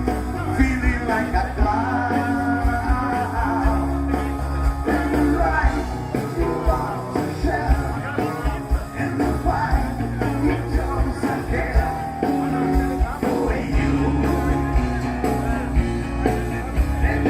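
Rock-and-roll song with a lead singer, guitars and a steady drum beat, played from a vinyl record.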